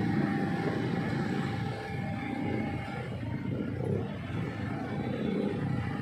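Steady low rumble of running engines, with a faint steady whine that fades out about halfway through.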